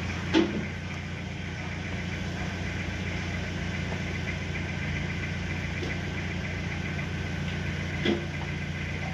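An engine running steadily at idle, a constant low hum. A short sharp knock sounds about half a second in and another near the end.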